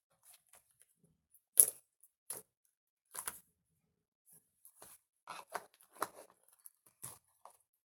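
Scattered short clicks and rustles of small objects being handled close by, irregular, with the loudest click about a second and a half in.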